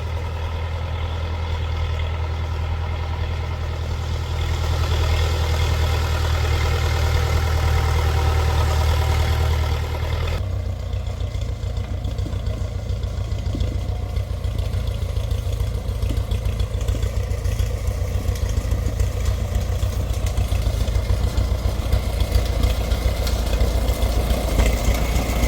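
Old Case 580CK backhoe's engine running steadily while it is being driven. About ten seconds in the sound changes abruptly to a duller, pulsing note.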